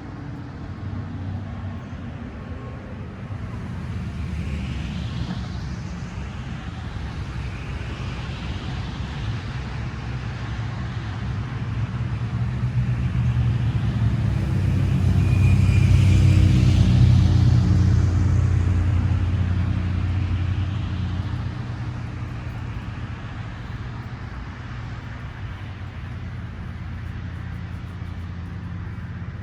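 A motor vehicle passing, its low engine rumble building to its loudest about midway and then fading away.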